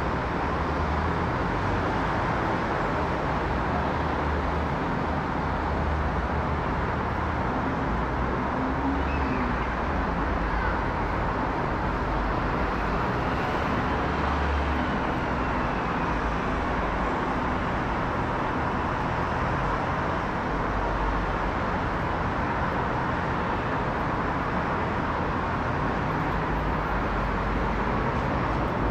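Steady, even rumble of a Boeing 787-9 airliner's jet engines passing high overhead.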